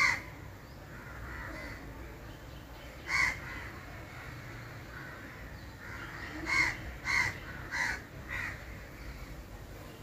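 A crow cawing: a single caw, another about three seconds later, then a quick run of four caws. A steady low hum of the moving auto-rickshaw lies underneath.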